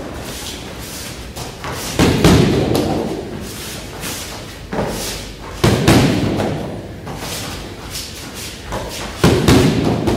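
Boxing gloves and a bare foot striking padded kick pads in repeated jab, cross and front-kick combinations: three rounds, each with one or two lighter smacks followed by a heavy thud, echoing in a large hall.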